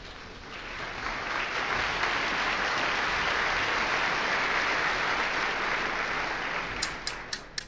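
Audience applause that swells, holds, then dies away, ending with a few last sharp claps.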